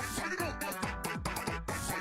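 Electronic pop music with a steady beat and sliding bass notes.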